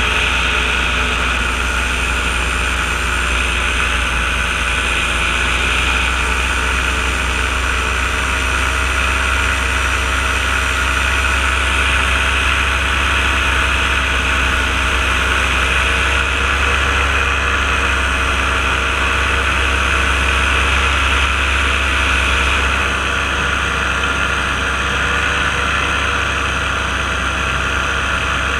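Paramotor engine and propeller running at a steady cruise throttle, mixed with steady wind noise on the microphone.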